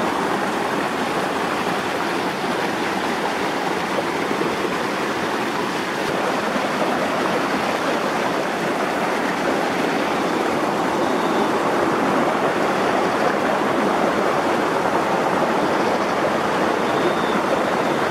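A shallow hill river rushing steadily over stones, an unbroken wash of water noise.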